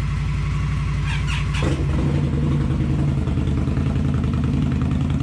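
Indian Scout V-twin motorcycle idling with a steady beat; about a second and a half in the sound turns louder, deeper and choppier as the Scout with an aftermarket slip-on exhaust takes over.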